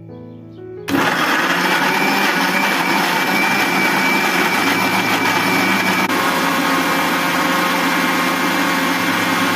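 Electric mixer grinder (mixie) switched on about a second in, its motor and blades running steadily as they blend mango chunks and sugar into a smooth puree. Its tone shifts slightly about six seconds in.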